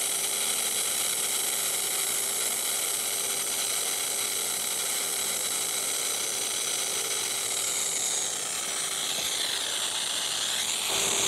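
TIG welding arc on stainless steel plate hissing steadily while a seam weld is run along the edge of the joint, from an Everlast PowerPro 164i inverter welder.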